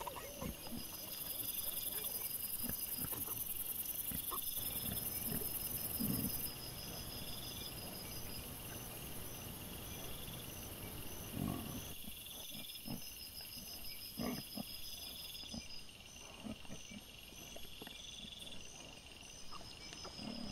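Wild boar and piglets foraging, with short scattered grunts and rooting sounds in leaf litter. A regular high chirping repeats steadily in the background.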